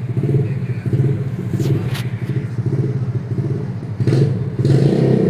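A small engine running steadily with a fast pulsing beat and a hum, getting louder about four seconds in. Two sharp clicks near the middle.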